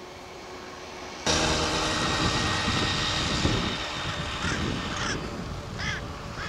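A steady rushing noise, like an engine or wind, starts abruptly a little over a second in and stays loud. From about two-thirds of the way in, a bird gives four short, harsh calls.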